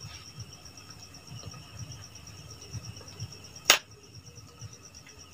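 An insect, such as a cricket, trilling steadily in a high, evenly pulsing tone. A single sharp click about three and a half seconds in is the loudest sound.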